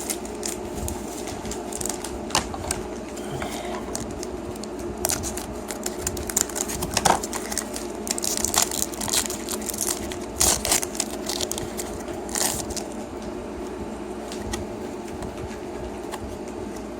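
Foil Pokémon booster pack wrapper being crinkled and torn open, irregular sharp crackles that come thickest in the middle, over a steady low hum.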